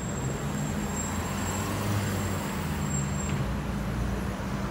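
Steady low hum of an idling engine, over the noise of street traffic.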